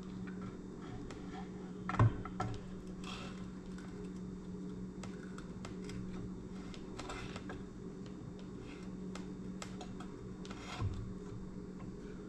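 Small clicks and taps of parts being handled as an outboard's lower gearcase is worked up against the midsection, with a sharp knock about two seconds in and a softer one near the end. A steady low hum runs underneath.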